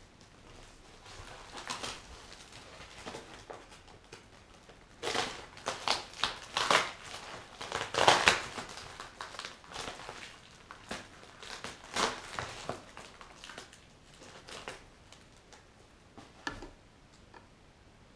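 Plastic packaging crinkling and rustling as yellow padded mailer bags are handled and pulled open, in irregular bursts that are loudest in the middle and die down near the end.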